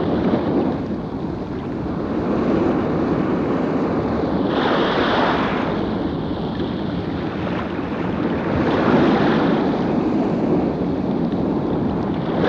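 Sea waves washing ashore, the surf swelling about every four seconds.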